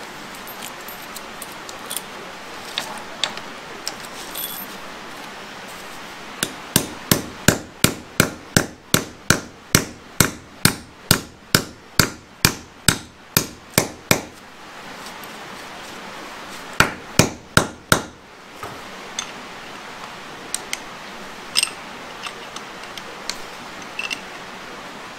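Hand hammer driving a steel concrete anchor stud into a drilled hole in the floor: a steady run of sharp metal blows, about three a second for some eight seconds, then a pause and a quick burst of about five more. Light metallic clinks of chain and tools before and after.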